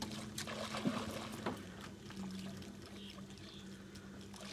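River water lapping and trickling against the boat, with a few light splashes or taps in the first second and a half and a steady low hum underneath.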